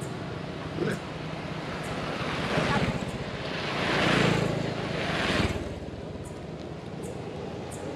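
Motorbike passing on the road, its engine growing louder, loudest about four seconds in, then fading away.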